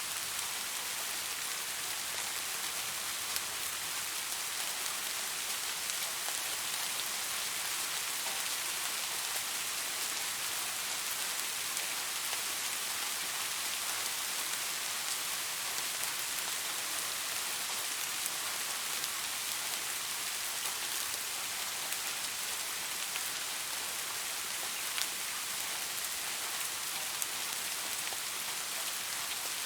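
Steady rain falling on leaves: a constant dense hiss with scattered single drops ticking through it.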